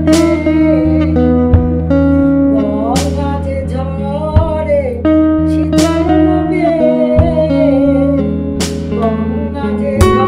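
A woman singing a Bengali devotional song in long, wavering held notes, with instrumental accompaniment of sustained notes and a few sharp strikes.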